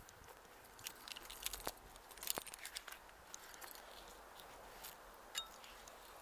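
Faint clicks, scrapes and rustles of a climbing rope and its metal hardware being handled as a tree climber pulls himself in hand over hand, with a cluster of clicks between one and three seconds in and a single short metallic clink near the end.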